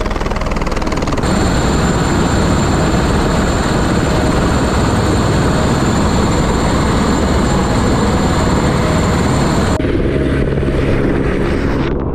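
Helicopter running at close range: steady loud rotor wash with a high, thin turbine whine over it. The whine drops out abruptly about ten seconds in, while the rotor noise carries on.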